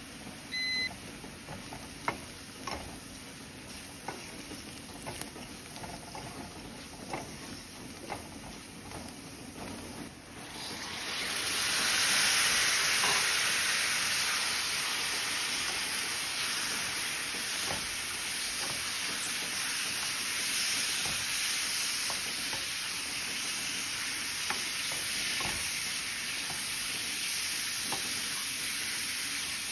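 Onions and spices cooking softly in a stainless steel pan, with a wooden spatula clicking and scraping against it, and a brief beep near the start. About eleven seconds in, raw chicken pieces go into the hot pan and a loud sizzle starts, carrying on as they are stirred through the spices.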